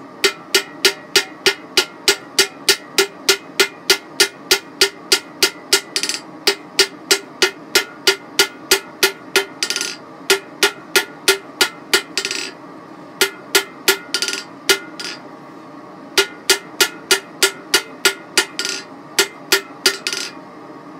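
Hand hammer striking red-hot coil-spring steel on an anvil at about two and a half blows a second, with a few brief pauses. The blows square and taper the bar, and the anvil rings steadily between them.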